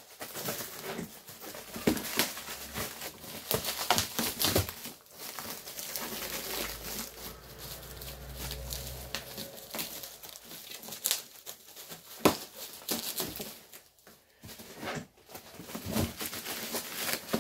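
Black plastic bin-bag wrapping and bubble wrap being torn open and crumpled by hand, with an irregular crackling and rustling of plastic and one sharp click about twelve seconds in.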